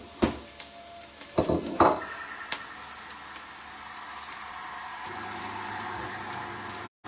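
Onions and breadcrumbs sizzling in pans on the stove. In the first two seconds there are a few sharp clicks and knocks, the loudest sounds here. A low steady hum joins about five seconds in.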